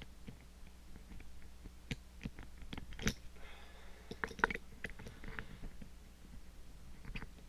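Small metal clicks and scrapes of lock-picking tools working the levers inside an Ingersoll 10-lever padlock: irregular light ticks, with a short scratchy rasp about halfway through.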